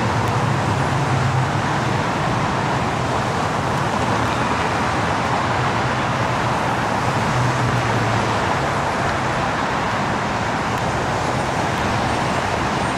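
Steady noise of dense road traffic: many engines and tyres blending into one continuous hum, with a low engine drone swelling briefly twice.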